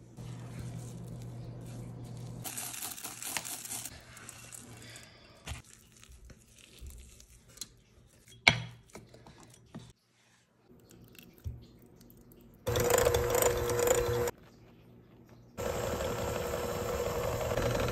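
Thick cookie dough being worked and scraped in a glass bowl, with one sharp click about halfway through. Then an electric hand mixer runs, first a burst of about two seconds and, after a short pause, steadily again.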